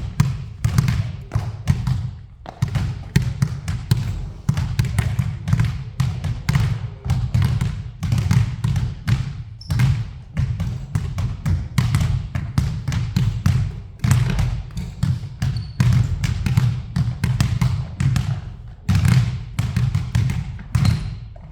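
A basketball dribbled hard and fast on a court floor during a ball-handling drill: quick, uneven bounces, several a second, without a break.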